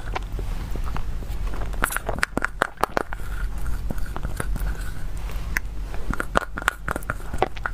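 Close-miked eating: a small wooden spoon scraping and clicking against a plastic cup as it digs out whipped-cream dessert, with mouth sounds of eating it.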